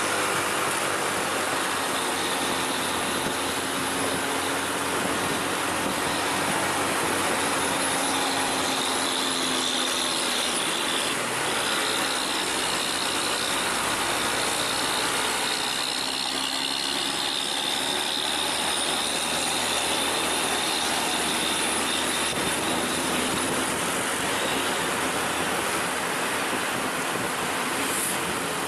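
Steady road and wind noise of riding on a motorcycle close behind an intercity bus, with engine sound slowly rising and falling in pitch.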